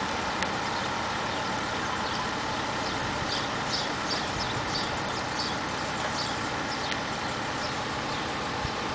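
Mobile crane's diesel engine running steadily while it hoists a section of a telecom lattice mast. From about two seconds in until near the end, a bird chirps repeatedly in short high notes.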